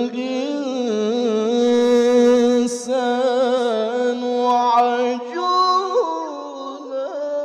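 Male qari reciting the Quran in tilawah style into a microphone: one long melismatic phrase held on a sustained note with fine wavering ornaments. The voice steps up in pitch about five seconds in and fades near the end.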